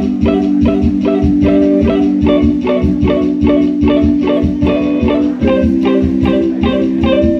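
Live indie rock band playing an instrumental passage: electric guitars pick a quick repeating figure over held chords, with bass guitar and drums underneath. The chord changes about five and a half seconds in.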